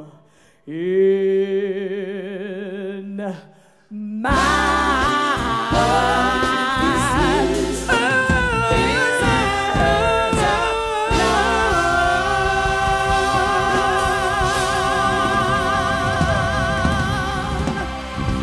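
Live soul-style vocal performance: a woman's lead vocal sings a held note with vibrato, nearly unaccompanied at first. A full band comes in about four seconds in, and the song builds to a long, held final note that stops just before the end.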